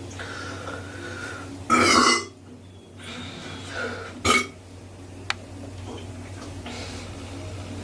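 A person burping watery burps: a loud one about two seconds in that lasts about half a second, and a shorter one about four seconds in. A sharp click follows about a second later.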